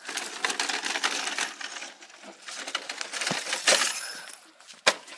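Crackling and crunching of small RC-truck tyres over dry dirt and debris, in uneven bursts, with one sharp knock near the end.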